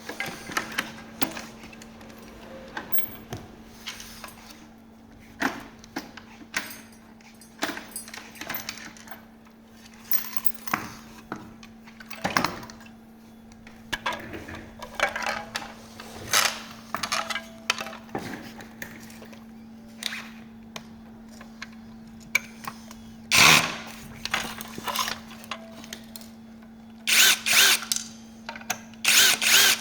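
Power drill running in short bursts while fasteners are taken out during disassembly: once about two-thirds of the way in, then three quick bursts near the end. Between them come scattered clicks and knocks of parts and tools being handled, over a steady low hum.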